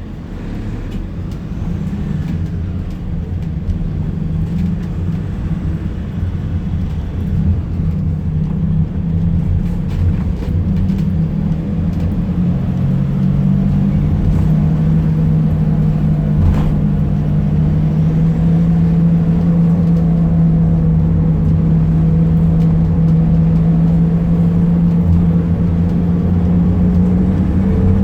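Fiat Ducato minibus's diesel engine droning as it drives, growing louder over the first several seconds and then holding steady, with a faint higher tone creeping up near the end. The van's turbocharger was failing, making a strange noise.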